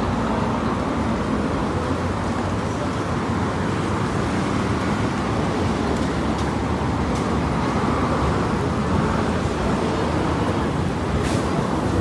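Steady city street noise: road traffic running by on a busy street.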